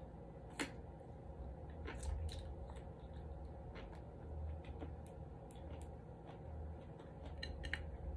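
A person chewing a mouthful of cooked asparagus close to the microphone, with scattered small mouth clicks and crunches.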